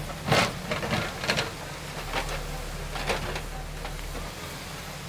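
Backhoe loader's diesel engine running steadily at a low hum, with several sharp knocks and clanks in the first three and a half seconds.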